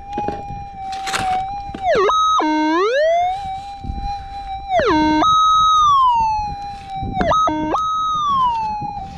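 Minelab GPZ 7000 gold detector's steady threshold hum broken three times by strong target signals, each dipping low, jumping high and gliding back down. It is the detector sounding off on a gold nugget in the dug ground. A brief scrape of dirt comes about a second in.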